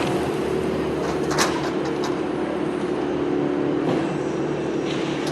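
Heavy equipment's engine running steadily with a constant hum, and a single sharp knock about a second and a half in.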